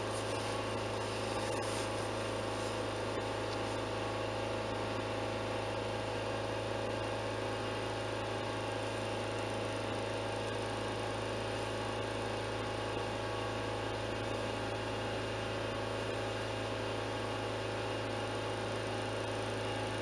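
Ford Fusion engine held at a steady 3000 rpm, heard from inside the cabin as an even, unchanging hum. The warm engine is being held at speed to purge air pockets from the cooling system.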